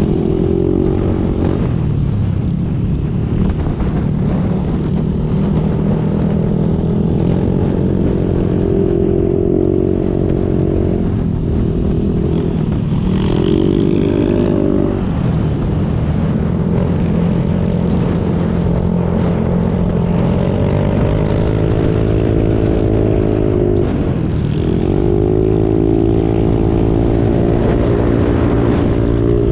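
Motorcycle engine running under way, its pitch climbing and dropping several times as the throttle opens and gears change, over steady road and wind noise.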